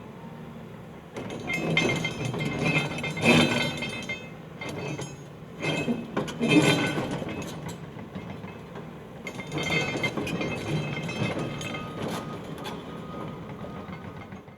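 Cat 323F excavator ripping rock: the ripper shank scraping and grinding through stone with clinking of rock and steel, in three passes, over the steady hum of the diesel engine.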